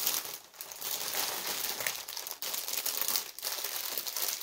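Packaging crinkling as it is handled, irregular and nearly continuous with a few brief pauses.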